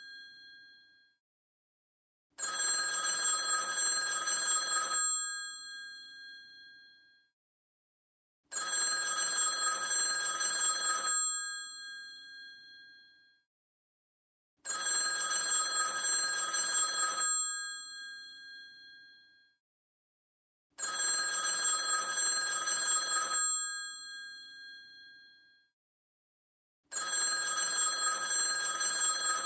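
Vintage telephone bell ringing in repeated bursts: five rings of about two and a half seconds each, one every six seconds or so, each leaving a ringing tail that fades.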